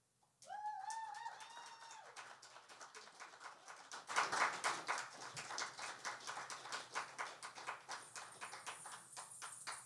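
A small audience applauding: individual hand claps, picking up after about half a second, fullest around the middle and thinning out near the end.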